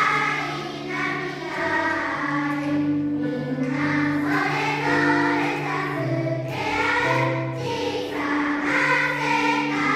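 Children's choir singing a song in long, held notes over a steady lower accompaniment.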